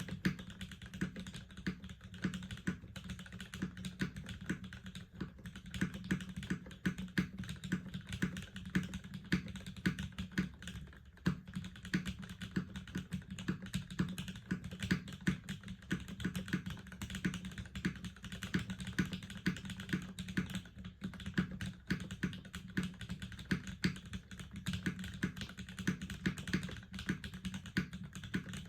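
Steady fast typing on a top-mount TKL custom mechanical keyboard with an aluminium plate, lubed and filmed Cherry MX Black Hana Gumi linear switches and GMK keycaps: a dense run of deep, muted keystroke clacks.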